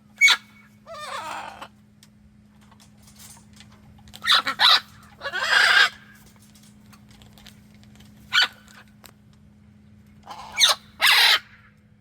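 A parrot squawking and calling in separate bursts: a sharp call, a falling warbled call, then harsh squawks, and a double squawk near the end, over a steady low hum.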